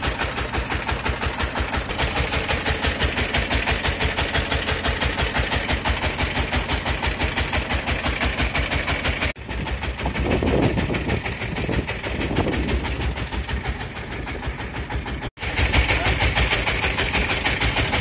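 Fishing boat's engine running with a steady, rapid pulsing beat. It drops out abruptly about nine seconds in and again near fifteen seconds, running quieter between the two breaks.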